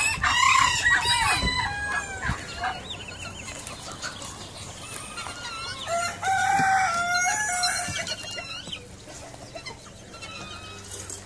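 Roosters crowing: one loud crow right at the start and a second, lower crow about six seconds in, with chickens clucking between and after.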